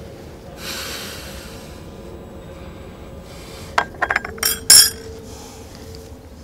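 China cups and saucers clinking on a table: a quick run of several clinks from about four seconds in, the last the loudest. There is a brief soft rustle about half a second in.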